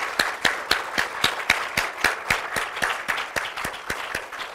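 Audience clapping, the individual claps plainly heard, slowly dying away towards the end.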